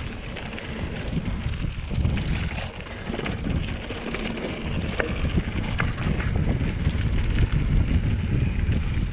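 Mountain bike rolling over a dirt singletrack, its tyres crunching on the trail under heavy wind rumble on the camera's microphone, with scattered clicks and rattles from the bike.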